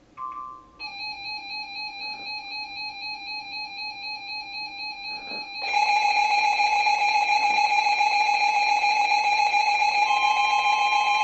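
Emergency Alert System alert tones opening a severe thunderstorm warning. A short beep comes first, then a pulsing tone for about five seconds, then a much louder steady alert tone; a higher tone joins it near the end.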